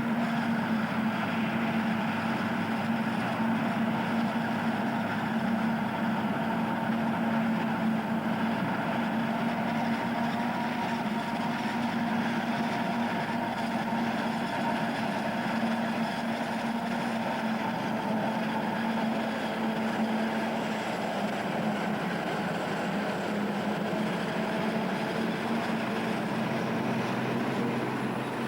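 John Deere self-propelled forage harvester running steadily while cutting maize: an even machine noise with a constant low hum.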